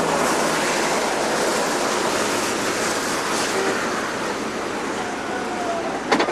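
Steady rushing wind noise on the camcorder's microphone, easing slightly toward the end, with a short sharp click about six seconds in.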